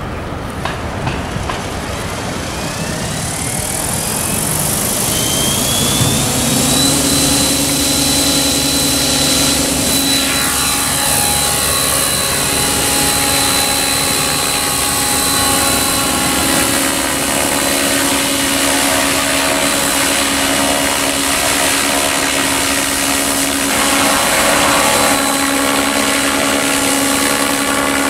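Electric radio-controlled model helicopter spooling up: the motor whine and rotor tone rise in pitch over the first several seconds, then settle into a steady high whine with the rotor's hum as it flies.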